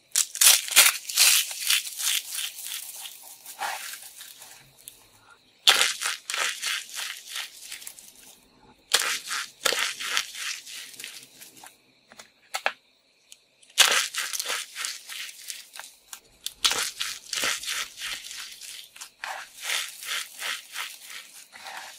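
Dried, starch-dusted soap pieces crunching and crackling as hands squeeze and crush them. The sound comes in bouts of rapid crisp crackles, with a short pause a little past halfway.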